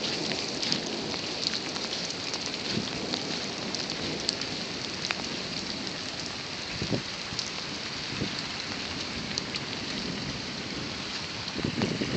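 Steady heavy rain, with drops ticking on hard surfaces and a couple of dull low thumps past the middle.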